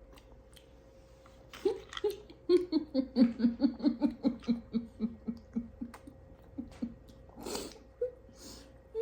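A person laughing: a long run of quick pitched 'ha-ha' pulses that slowly falls in pitch, followed by a breathy exhale.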